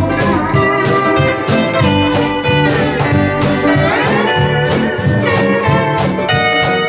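Hawaiian steel guitar playing the melody over bass, ukulele, rhythm guitar and percussion keeping a steady strummed beat. About four seconds in, the steel guitar slides up in pitch.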